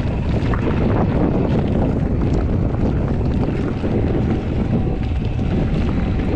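Steady wind rumbling against the microphone of a camera carried on a moving bicycle, with a few faint ticks above it.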